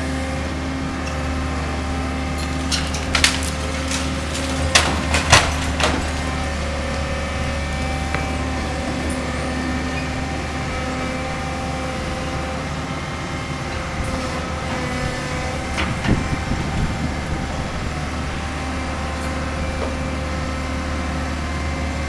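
Tracked hydraulic excavator's diesel engine running steadily as its bucket tears into a building's upper floor. Sharp cracking and crashing of breaking debris comes about three seconds in, in a cluster around five seconds, and again around sixteen seconds.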